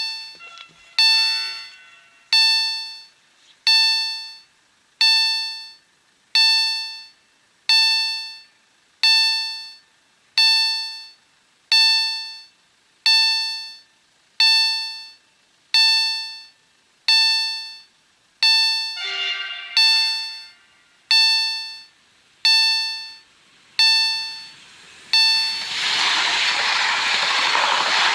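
Level-crossing warning bell (EHL type, SPA-1 ZWUS system) ringing single strikes about once every 1.4 seconds, each ringing out and dying away, as a warning that a train is coming. About 25 seconds in, an electric multiple unit passes over the crossing with a loud rush of wheel and running noise that covers the bell.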